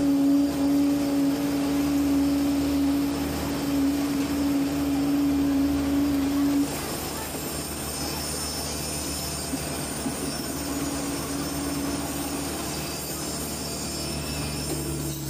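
Diesel engines of a PC120 hydraulic excavator and a concrete mixer truck running steadily, heard from inside the excavator cab while concrete is loaded into the bucket. A strong steady hum drops away about halfway through. The sound then turns a little quieter, with a high steady whine.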